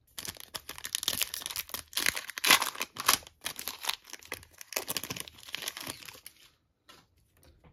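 Foil wrapper of a 2023 Topps Chrome baseball card pack being torn open and crinkled by hand: a dense run of crackling that stops about six and a half seconds in.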